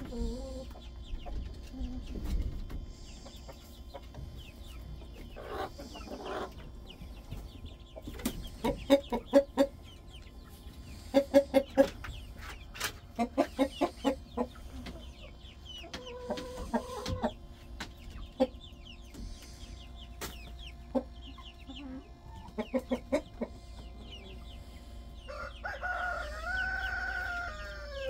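Chickens clucking in several short runs of quick clucks, with a single call about halfway through and a longer drawn-out call near the end.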